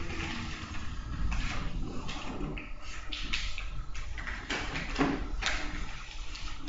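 Rustling and light knocks of papers and small objects being handled on a table, in irregular short bursts over a steady low room hum.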